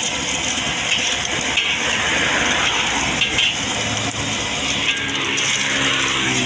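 Egg frying in oil in a steel wok, a steady sizzling hiss, with the metal spatula scraping the wok as it slides and flips the egg. From about four seconds in, a steady low engine hum joins it.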